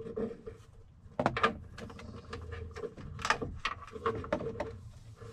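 Irregular plastic clicks, knocks and rattles of wiring connectors and door trim being handled at an open pickup door, with the sharpest knocks just after a second in and around three seconds in.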